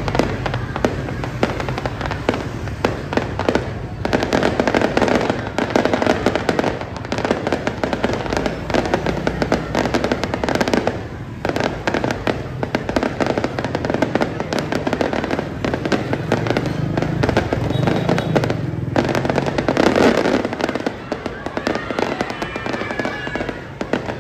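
Aerial fireworks display: a dense, continuous barrage of shell bursts and crackling, with many rapid bangs. It eases off slightly near the end.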